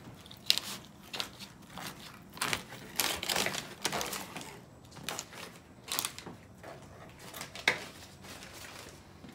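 Knife sawing through smoked beef plate ribs with a crusty bark, with butcher paper crinkling under the meat. Irregular scraping strokes, with a couple of sharp clicks of the blade on the wooden cutting board, one about half a second in and one late on.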